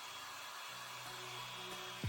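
CONFU hair dryer running steadily, a constant rush of air with a faint high whine, under background music with low bass notes.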